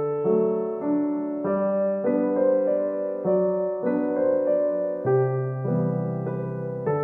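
Background instrumental keyboard music: a slow melody over held chords, the notes changing about once a second.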